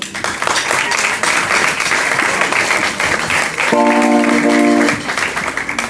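Audience applauding, with one steady instrument note held for about a second near the end.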